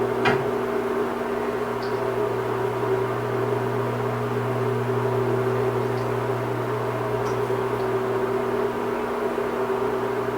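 A steady hum of several held tones that does not change, with one short click just after it begins.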